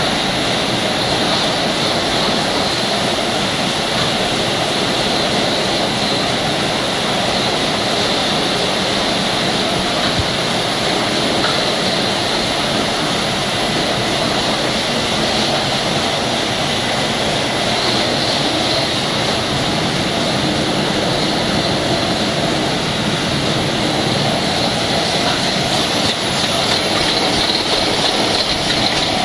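Bottled-water production line machinery running: the rotary filling machinery makes a loud, steady mechanical whir and hiss with no distinct beats.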